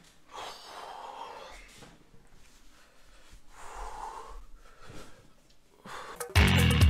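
Two long, noisy breaths close to the microphone, then loud music with a heavy bass beat starts suddenly near the end.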